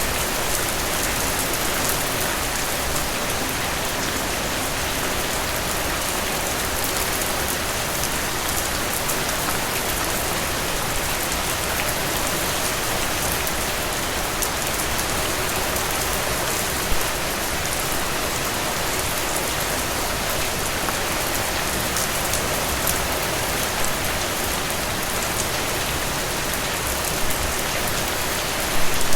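Heavy rain falling steadily, a dense even patter of drops on surfaces. A few sharper, louder drop hits stand out, one about halfway through and a couple near the end.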